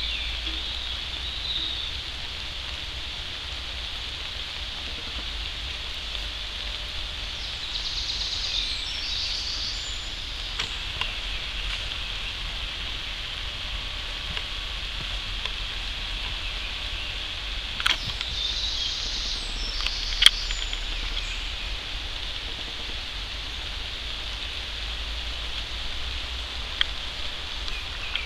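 Outdoor woodland ambience: a steady hiss with a few high chirps in two short spells, and a few sharp clicks, the loudest about two-thirds of the way through.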